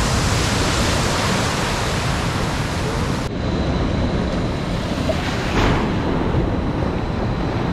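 Surf rushing in an artificial wave pool: a steady wash of breaking water with some wind on the microphone. The sound abruptly turns duller about three seconds in.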